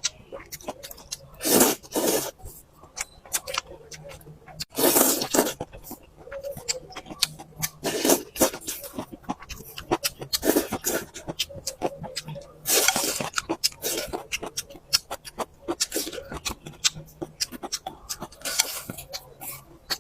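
Close-up eating sounds of flat noodles: about six loud slurps, each lasting about half a second to a second, with wet chewing and lip-smacking clicks between them.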